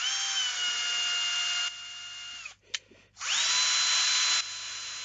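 Cordless drill turning an M4 tap to cut threads into clear cast epoxy resin. The motor whines at a steady speed in two runs of about two and a half seconds each, with a short pause and a click between them.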